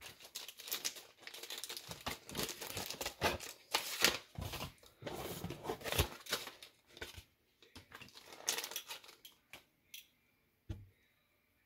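Paper coin envelopes and clear plastic wrapping rustling and crinkling as a pocket watch is handled and slid in and out of its envelope, with a few short clicks and one dull knock on the desk near the end.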